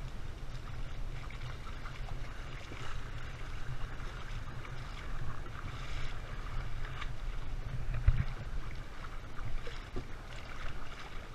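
Water sloshing and splashing unevenly as people wade through shallow sea water, over a low rumble of wind buffeting the microphone. A single sharp thump about eight seconds in.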